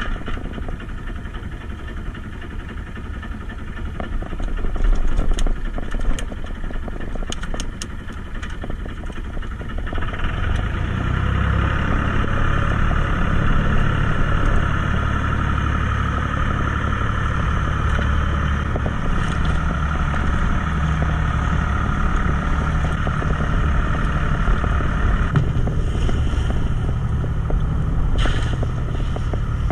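Fishing boat's engine running steadily, growing louder and more even about ten seconds in. A few sharp clicks come in the first third.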